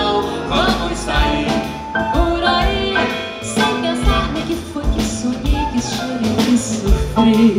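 Live band playing an instrumental passage of a song with a steady beat, with accordion, flute and keyboard in the line-up.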